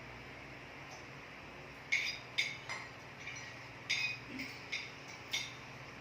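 Cutlery clinking against plates during a quiet meal: about seven light, sharp clinks from about two seconds in, each with a short ring.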